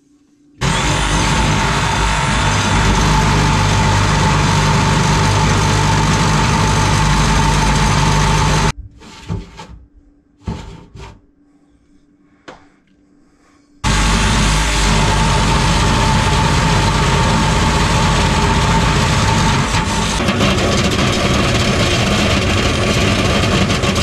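DeWalt cordless reciprocating saw running hard as its blade cuts into the sink's garbage-disposal drain flange. It makes two long steady runs, with a few short trigger bursts in the pause of about five seconds between them.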